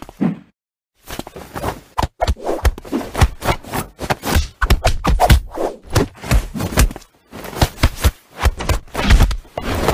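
Irregular thumps, scrapes and rustles close to the microphone as a hand pats and bats at a cat on a cat tree's padded perch. The sound starts about a second in.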